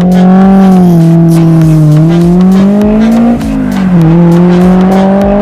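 Honda S2000's inline-four engine through a MagnaFlow dual-outlet aftermarket exhaust, pulling hard under acceleration: the pitch climbs steadily, drops sharply with an upshift about three and a half seconds in, then climbs again in the next gear.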